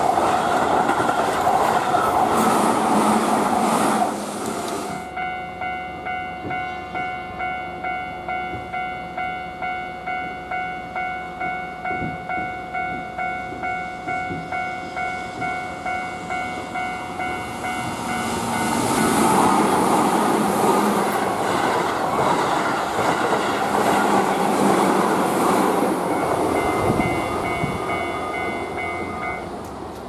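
A Keihan train runs through a level crossing and its noise stops after about four seconds. A Japanese level-crossing warning bell then rings steadily, about two strokes a second. From just past halfway a Keihan 8000-series limited express passes and its running noise covers the bell, which comes through again near the end.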